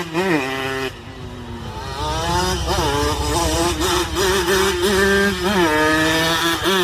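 Motorcycle engine revved in quick throttle blips, its pitch rising and falling about every half second. The revs drop away about a second in, then it picks up and keeps blipping.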